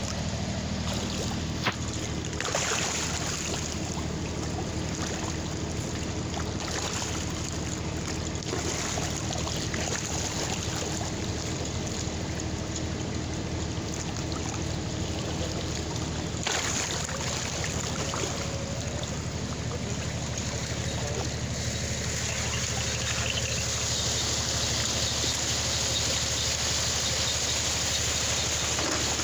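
Water churning and splashing in a crowded trout raceway at the suction hose of a Pescamotion 50 fish pump, over a steady low machine hum.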